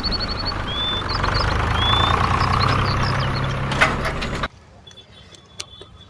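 A motor running steadily with a low, even drone, with birds chirping over it; it cuts off abruptly about four and a half seconds in.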